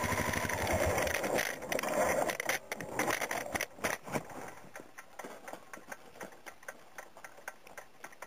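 Motorcycle engine running at low revs with an even pulse, dying away about two to four seconds in, followed by faint even ticking at about four a second.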